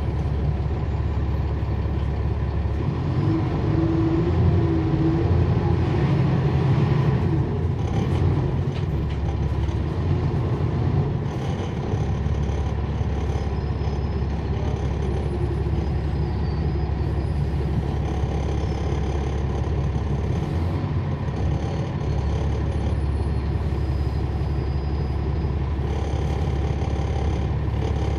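Cummins ISL9 diesel engine of a NABI 40-SFW transit bus, heard from on board, running steadily at low speed. It grows louder for several seconds from about three seconds in, with a faintly rising tone, then settles back.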